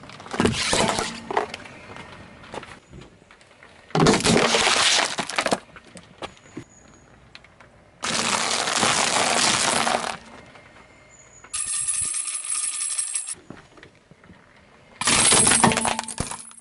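A car tyre rolling over and crushing a series of brittle objects on asphalt: five loud spells of cracking and crunching, one about every four seconds, including waffle ice-cream cones crunching in the middle. The fourth crush gives a steady high squeal instead of a crunch.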